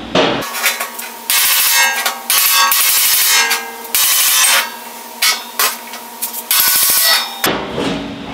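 Hand tools working a stainless steel grill hood: a chisel-edged tool struck against the sheet metal, in irregular bursts of metallic scraping and striking with a faint ringing from the panel, and a quick run of taps near the end.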